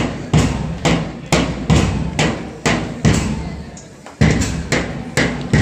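A drum beaten in a steady march rhythm, about two strokes a second, each stroke ringing briefly, with a slightly longer pause about four seconds in.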